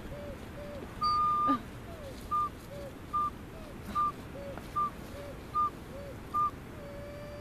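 Two small ocarinas played back and forth: short, pure, hooting notes alternate between a high pitch and one about an octave lower. About a second in, the high note is held for half a second, and near the end a low note is held longer.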